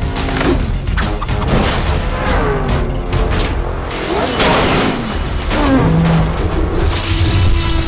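Action cartoon soundtrack: music with a series of sharp booms and crash hits.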